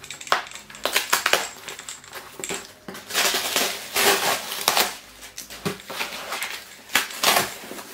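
A cardboard shipping box being opened by hand, its tape and packing material torn and crumpled in an uneven run of crackling rustles.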